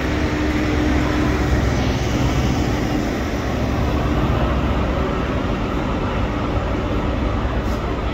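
High Speed Train with Class 43 diesel power cars and Mark 3 coaches passing close by: a steady diesel engine drone with rail and wheel rumble.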